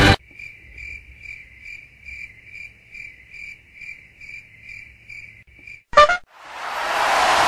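Crickets chirping in an even rhythm about twice a second, a stock sound effect for the silence of an audience that does not answer. Just before six seconds a short, sharp, loud sound cuts in, followed by a hiss that swells over the last second.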